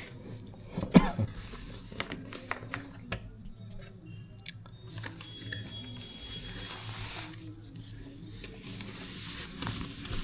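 Cardboard keyboard box and its packaging being opened by hand. Sharp taps and knocks come first, one louder knock about a second in, then from about halfway a stretch of rustling and scraping as the packaging is torn and pulled apart.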